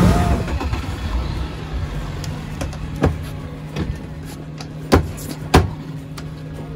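Boat motor running steadily at low speed with a low hum. Its level drops sharply at the start. A few sharp knocks come about three, five and five and a half seconds in.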